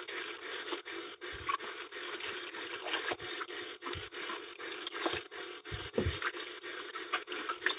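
Hands handling fruit: irregular scraping and rubbing with light knocks, several times a second.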